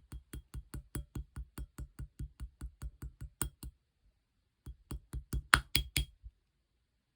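Clear slime being pressed and poked by hand, making a quick, even run of wet clicks about five a second. After a pause of about a second, a shorter run follows and ends with a few louder pops.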